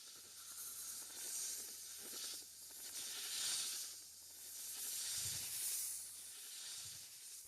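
Snake hissing: several long hisses one after another, each swelling and fading over a second or two.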